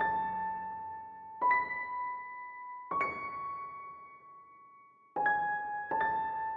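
Slow outro music: single electric-piano notes struck one at a time, about every one and a half seconds, each ringing on and fading.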